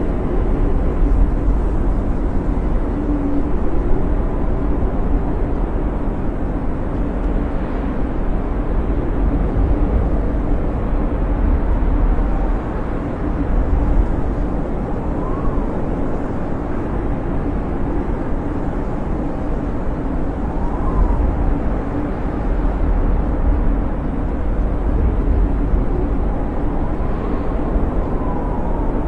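Snowstorm wind blowing steadily with a deep rumble, with faint thin whistles that rise and fall now and then.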